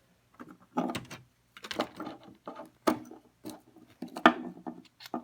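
X-Acto hobby knife blade scraping and prying at scenery on a model railroad layout, in about seven short, irregular scrapes, some with a squeak.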